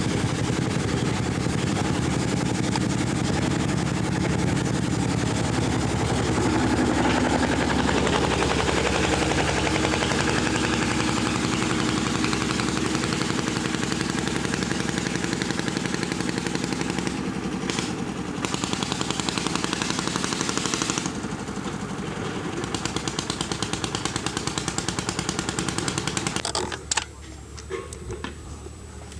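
A motor running steadily with a rapid, even pulsing. It cuts off abruptly with a click near the end.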